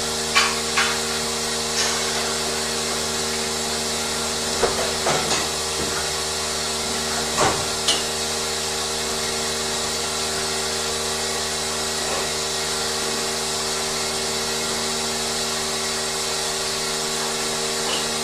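Steady hum of running machinery, with a few brief sharp knocks or clanks in the first half.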